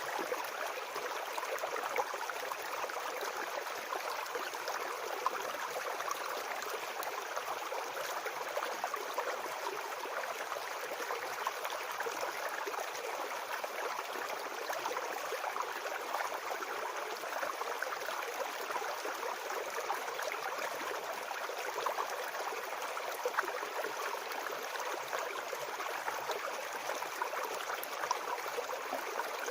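Small forest brook babbling steadily over stones, a continuous rush of water flecked with tiny splashes.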